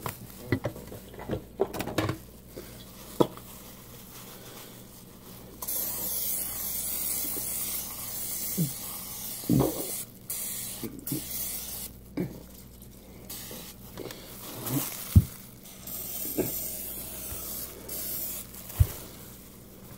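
Pam cooking spray from an aerosol can hissing onto a pan in several sprays. The longest spray starts about six seconds in and lasts about four seconds. A few short knocks come near the end.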